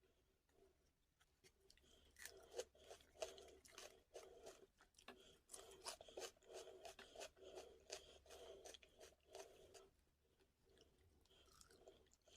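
A person chewing food close to the microphone, with quick crunches and wet mouth clicks. The chewing is busiest from about two seconds in to about ten seconds in.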